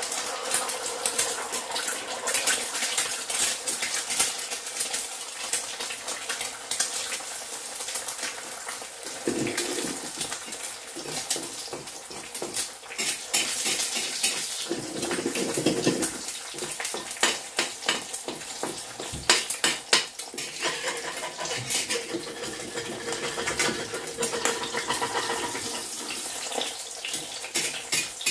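Eggs frying in hot oil in a wok, a steady sizzle, with a metal spatula scraping and tapping against the wok many times.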